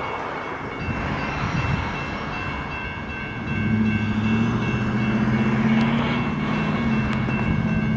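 Railroad crossing warning bell ringing in quick repeated strokes as the crossing gate lowers. About three and a half seconds in, the low rumble of an approaching freight train's diesel locomotives comes in and grows louder.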